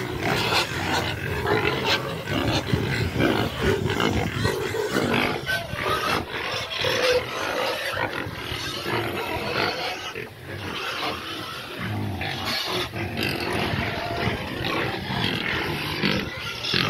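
Several young pigs in wooden pens squealing and grunting together, a dense, continuous din of overlapping calls.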